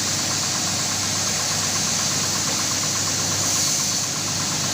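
Electric carpet-washing machine running steadily: a constant hum with a fast, even ticking and a hiss over it.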